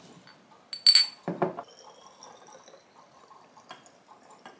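Glass clinking sharply about a second in, followed by a duller knock. Then a liquid is poured from a glass mixing bowl into a glass bottle, making a faint tone that rises in pitch as the bottle fills.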